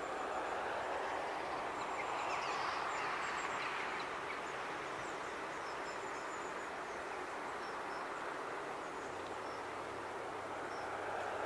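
Steady, distant rushing noise of open-air trackside ambience, with small birds chirping faintly throughout. A low steady hum comes in near the end.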